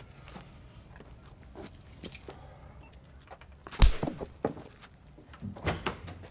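Light clinks and rustles, with one sharp, heavy thump about four seconds in and a few more knocks near the end.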